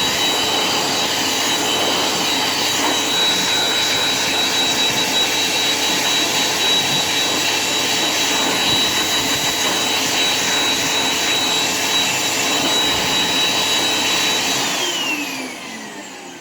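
Wallgate electric hand dryer blowing steadily, a loud rush of air with a high motor whine. Near the end it cuts out and the whine falls in pitch as the motor winds down.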